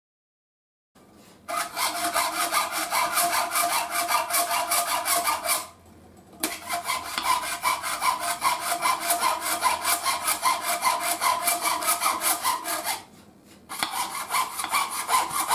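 Hand fretsaw (jeweller's saw) cutting a thin metal plate: rapid, even strokes of the fine blade with a ringing rasp, starting about a second in and pausing briefly twice.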